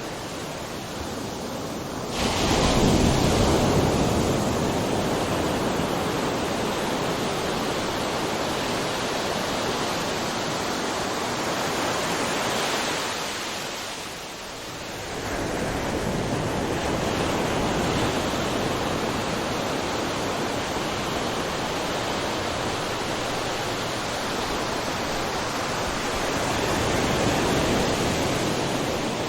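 Ocean surf: waves breaking and washing in a steady rushing hiss. A wave crashes suddenly about two seconds in; the wash ebbs near the middle and then builds again.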